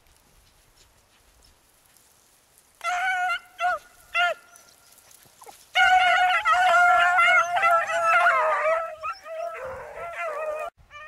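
Beagles baying on a rabbit's track. A few short bawls come about three seconds in, then near-continuous baying starts about six seconds in and breaks off near the end.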